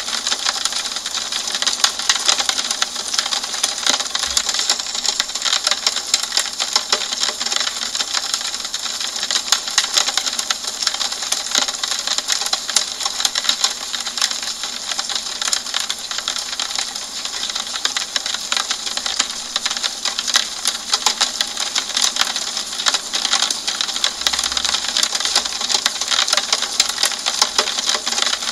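Steady rain falling on a window pane: a dense, even stream of small drop taps over a soft hiss, holding at the same level throughout.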